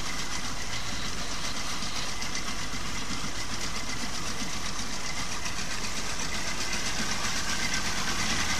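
Mercury 25 outboard motor running steadily with its lower unit submerged in a drum of water, growing slightly louder near the end. It is being test-run after a cooling-impeller inspection, and the telltale is pumping a stream of cooling water.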